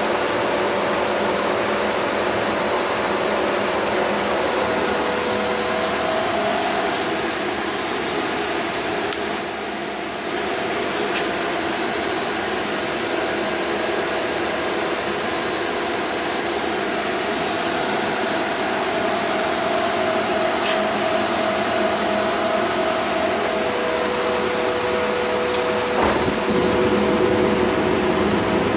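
Bullard Cutmaster 42 vertical turret lathe running, its big chuck table spinning: a steady mechanical whir with a constant gear whine. The level dips briefly about ten seconds in, and near the end a clunk is followed by a slightly louder, deeper running sound.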